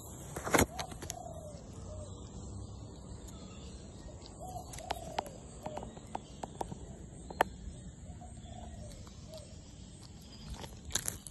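Handling noise on a phone's microphone as a monkey holds and fumbles the phone: rubbing with several sharp knocks, the loudest near the start and about seven seconds in. Short, faint arching animal calls recur in the background.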